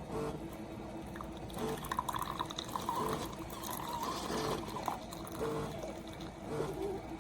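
SiFENE single-serve pod coffee maker dispensing hot coffee into a cup near the end of a brew, the liquid coming out unevenly in irregular trickles and spurts.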